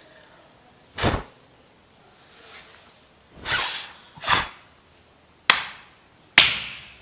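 Five short, loud noises made close to the robot's noise sensor to set it off; the last two are sharp cracks that die away quickly.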